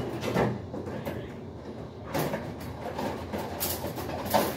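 Several short knocks and rustles of things being handled in a kitchen: one near the start, one about two seconds in, and a couple near the end.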